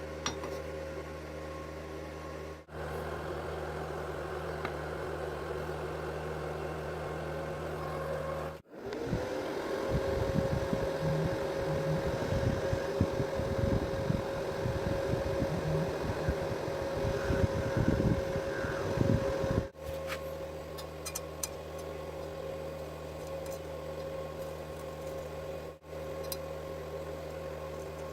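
Steady electrical hum of a welding setup, and from about nine seconds in an electric welding arc crackling irregularly on thin square steel tube for about ten seconds before it cuts off abruptly.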